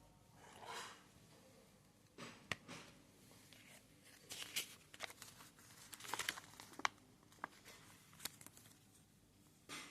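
Faint handling noises: scattered light clicks and taps with short rustles and scrapes, loudest around two thirds of the way in. No tool motor is running.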